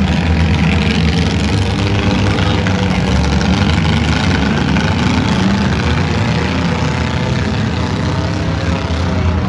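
V8 engines of demolition derby cars running steadily and loudly.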